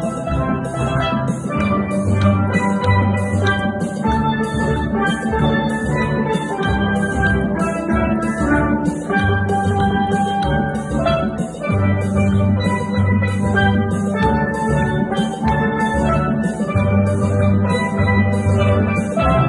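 Steel band playing: tenor and harmony steel pans play a melody over sustained bass-pan notes, with a steady percussion tick keeping the beat.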